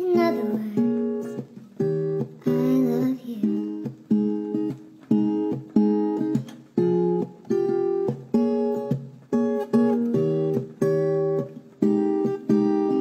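Background music: strummed acoustic guitar chords on a steady beat, each chord struck and left to fade. A short wavering, gliding voice-like sound comes at the very start and again about two and a half seconds in.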